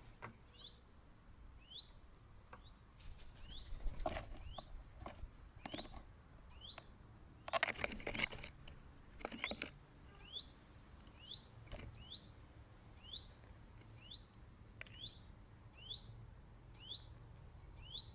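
A small bird repeating a short, high chirp a little faster than once a second, with bursts of knocking and rustling from birds at the feeder, loudest about four seconds in and again around eight seconds.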